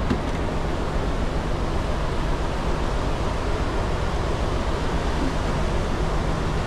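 Steady rushing wind and sea noise, with a faint low steady hum underneath.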